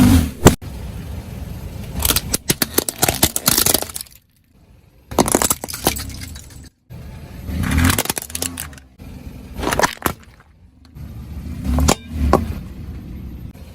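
A car's tyres rolling over and crushing brittle objects: about four bursts of cracking and crunching, with a low engine hum under some of them. Abrupt silent gaps fall between some of the bursts.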